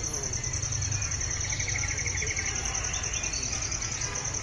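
Crickets trilling: one fast, even, high trill runs on steadily, and a second, lower trill joins for about a second around the middle, over a low background rumble.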